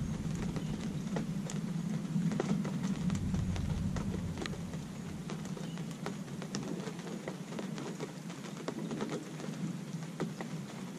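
Steady rain falling, with many individual drops tapping close by. The low rumble of thunder dies away over the first few seconds.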